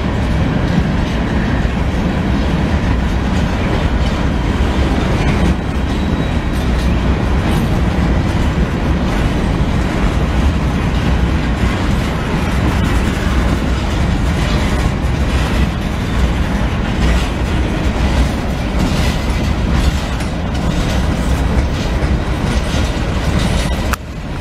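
Coal hopper cars of a Norfolk Southern freight train rolling past: a steady, loud rumble and clatter of steel wheels on the rails.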